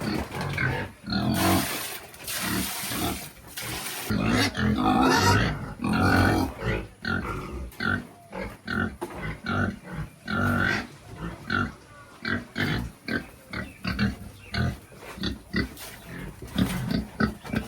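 Pigs grunting and squealing in their pen. There are a couple of longer, shrill squealing bouts in the first third, then a steady run of short, repeated grunts. The animals are agitated and only beginning to settle.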